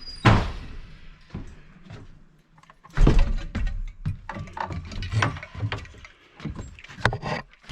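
A wooden screen door slapping shut just after the start, then a run of irregular knocks and thumps.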